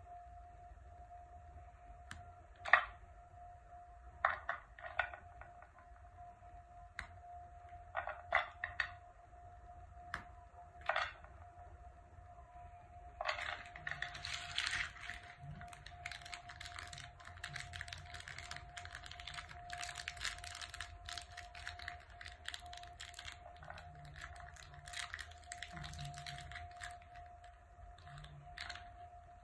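Chocolate wafer bars snapped into pieces by hand, a few sharp cracks over the first ten seconds or so, then plastic and foil wrappers crinkling almost continuously for the rest. A faint steady hum runs underneath.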